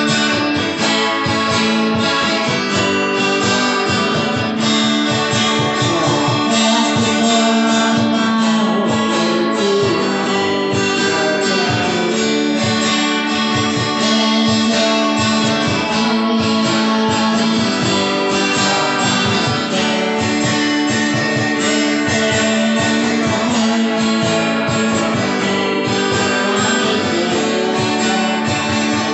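Two acoustic guitars strumming through an instrumental passage of a rock song, with a hand drum keeping the beat.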